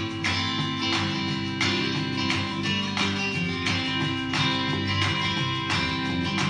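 Guitar music with regular plucked or strummed notes, played from a tablet through the auxiliary input and speakers of a 1963 Electronica Darclee 2 valve radio during a sound test.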